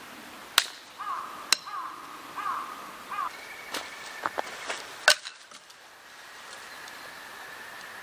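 A dry stick snapped by hand, two sharp cracks about a second apart, with a quick series of four chirping bird notes between them. More clicks and knocks follow, with one loud crack near the middle, over the steady rush of a river.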